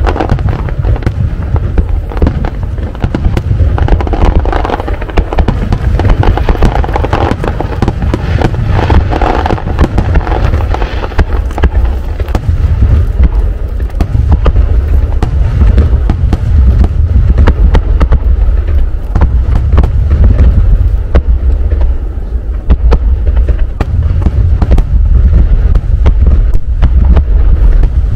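Aerial firework shells bursting in quick succession: a dense run of sharp bangs over a heavy, continuous low rumble.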